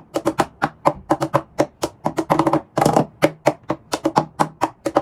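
Hands tapping and knocking out a quick, uneven rhythm of sharp strikes, played as the rhythm of a J-POP song, with a denser flurry of strikes about halfway through.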